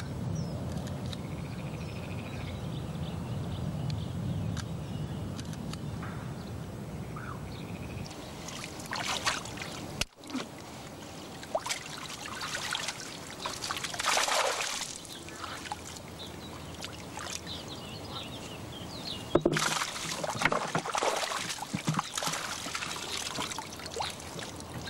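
Fish-filled mesh hoop net hauled out of the lake beside a boat, water streaming, pouring and splashing off it in two spells, about halfway through and again near the end. Before it comes a steady low rumble with faint chirps.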